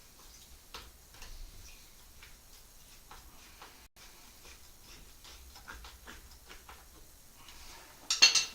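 Faint, irregular light clicks and taps, then a louder sharp clatter near the end.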